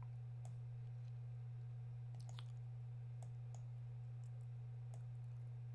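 A few soft, irregularly spaced computer-mouse clicks over a steady low hum.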